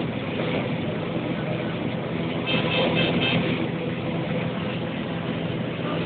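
Combine harvester running steadily while threshing maize, its engine and threshing gear heard from the cab. About halfway there is a quick series of four short high beeps.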